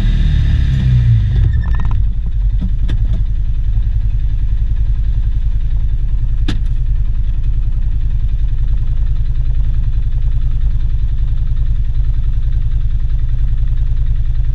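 Polaris Ranger 570's single-cylinder engine heard from inside the cab, dropping from a higher run to a steady idle about a second and a half in. A few light clicks come as it settles, and one sharp click about halfway through.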